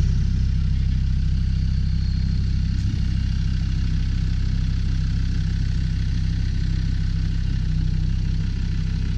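Land Rover TD5 five-cylinder turbodiesel idling steadily, with no revving.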